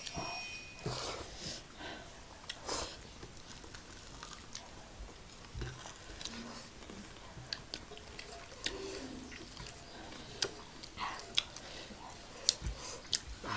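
People chewing and biting fried chicken, with scattered short crunches and clicks.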